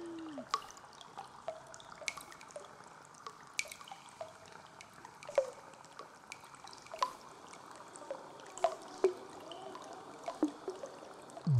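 Water dripping: single drops falling at about two a second, irregularly spaced, each a short plink, over a faint steady hiss.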